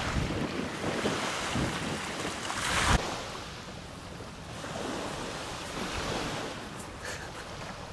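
Wind rushing over the microphone, with surf washing on the beach beneath it; one louder rush peaks about three seconds in.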